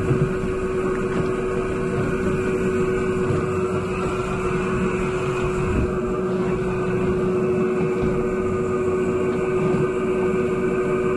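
Twin Mercury outboard motors running steadily, a constant drone with a steady hum that holds one pitch throughout.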